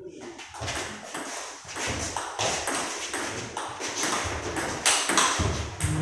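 Table tennis rally: the ball clicking back and forth off the bats and the table, a quick run of sharp ticks several times a second, opening with a serve.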